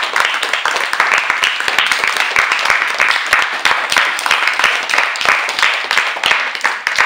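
A group of children applauding, many hands clapping quickly and unevenly.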